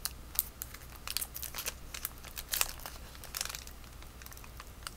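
Crinkling of a trading-card pack's wrapper being handled, with scattered short crackles.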